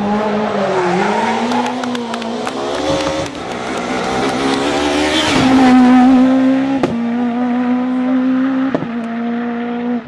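Rally car engine revving hard on a tarmac stage, its pitch dropping and climbing again with each gear change, with a couple of sharp cracks in the second half.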